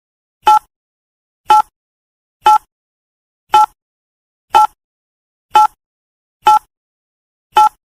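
Countdown timer sound effect: a short, sharp tick once a second, eight times, with dead silence between ticks.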